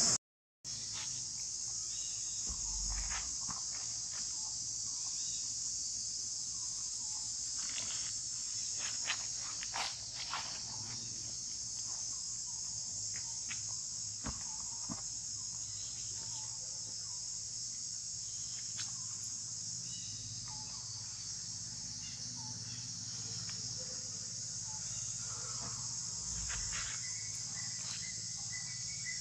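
A steady high-pitched drone from a chorus of insects, running without a break, with scattered faint clicks and rustles from the monkeys handling a plastic bucket.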